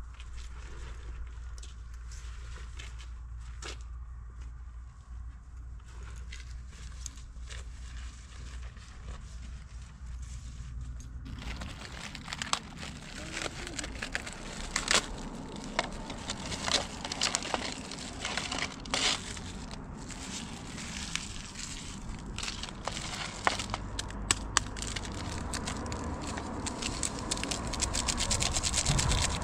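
A steady low rumble with faint clicks. About eleven seconds in, close handling of food packaging takes over: plastic and foil crinkling and tearing, with sharp clicks from lids and containers.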